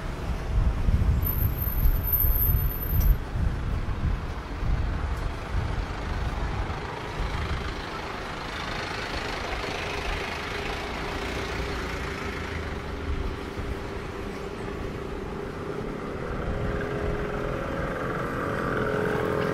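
Street traffic: motor vehicles running past with a rumble that is strongest in the first few seconds, then a steady engine hum that grows louder near the end.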